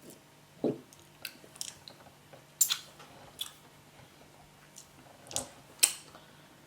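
Close-up mouth sounds of a person chewing and eating soft yam cooked with spinach: about a dozen irregular, short wet smacks and clicks.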